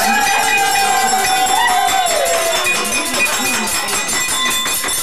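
Hand-held kitchen-band percussion, shakers and jingles, rattling in a steady rhythm, while a voice holds one long high note for about two and a half seconds, sliding down at the end.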